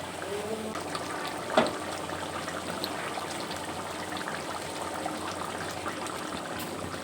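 Thick chicken kasha sizzling and crackling steadily in the pan as it finishes cooking, with one sharp click about a second and a half in.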